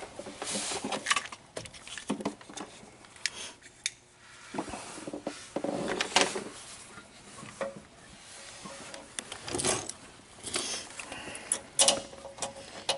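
Irregular clicks, knocks and rubbing as a rubber oil hose and its mounting clamp are pushed into place by hand against a truck's frame rail.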